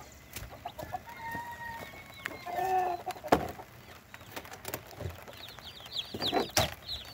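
Cornish Cross meat chicks peeping, a dense run of short, high, falling chirps that starts about five seconds in. Earlier come a few lower clucking calls from adult chickens, and two sharp knocks, the second near the end.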